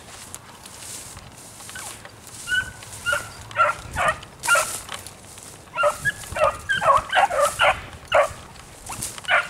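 Beagles baying on a track: short barks in quick runs, a few a second, starting about two and a half seconds in, with a brief gap near the middle and one last call near the end.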